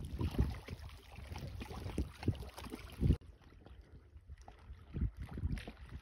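Wind rumbling and buffeting on the microphone, with small river waves lapping at the water's edge. The sound changes abruptly about three seconds in, where two recordings are joined.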